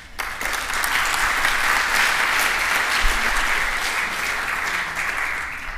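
Audience applauding: a dense patter of many hands clapping that starts abruptly, holds steady, and dies away near the end.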